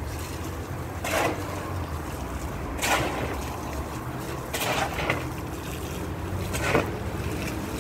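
A shovel scraping and scooping through a wet pile of sand and cement as concrete is mixed by hand, a stroke about every one and a half to two seconds. Under it are a steady low rumble and water running from a garden hose onto the pile.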